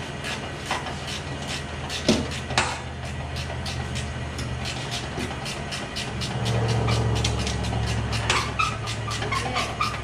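Hand ratchet wrench clicking in quick, even strokes as a tight bolt is turned on the snow blower housing, with two louder metal knocks about two seconds in. A steady low hum runs underneath and grows louder about six seconds in.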